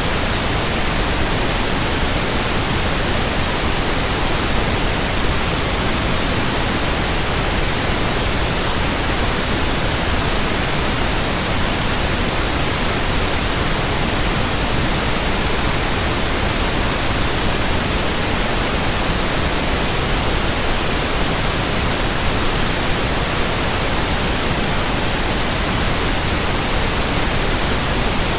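Steady white noise: an even, unbroken hiss across the whole range, with no pulses or changes.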